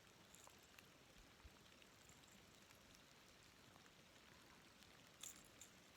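Near silence with faint rain falling, a few small ticks scattered through it.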